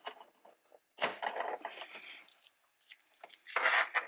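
A plastic wiring-harness connector being worked loose from a car's control module by hand: scraping and rubbing of plastic and wire in two short spells, about a second in and again near the end.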